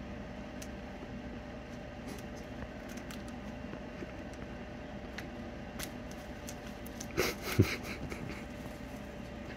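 Steady mechanical hum of a running fan or heater in a small room, with scattered faint clicks. About seven seconds in comes a short rustle, then a single sharp thump.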